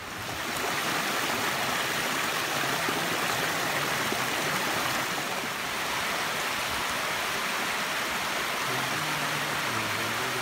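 Creek water rushing over small rock cascades at the head of a waterfall, a steady rush that swells up in the first second and then holds.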